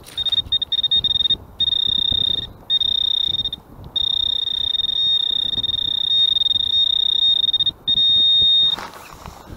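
Handheld metal-detecting pinpointer sounding a steady high-pitched tone as it is probed through wet gravel, cutting out briefly a few times and stopping about a second before the end: it is signalling a metal target in the pile.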